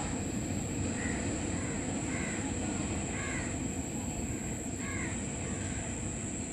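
A bird giving several short calls over a steady low rumble.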